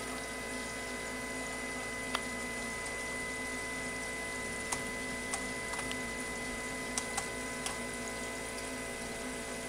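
Fuel injector flow test bench running a static flow test at 43.5 psi (3 bar): two Keihin injectors from a Yamaha OX66 outboard held wide open, spraying test fluid into graduated glass cylinders while the bench's fluid pump runs. A steady hiss and hum with a steady high tone, and a few faint clicks.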